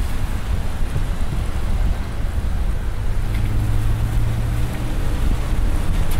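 Road noise from a moving car on a wet road, with wind on the microphone; a semi-trailer truck passes close at the start. A low engine drone holds for about two seconds midway.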